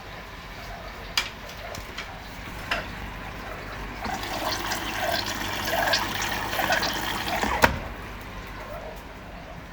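Beko washing machine taking in water for the final rinse: water rushing and splashing into the drum, swelling louder in the middle. A few sharp clicks stand out, the loudest near the end.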